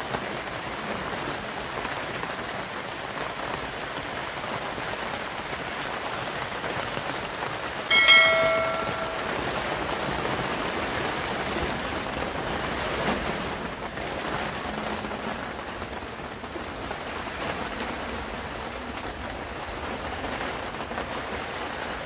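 Rain falling steadily on a plastic tarp roof. About eight seconds in, a short bright ringing chime sounds once, the loudest moment, and fades within about half a second.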